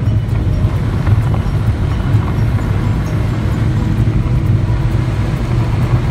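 Car driving along a gravel road, heard from inside the cabin: a steady low rumble of engine and tyres that holds even throughout.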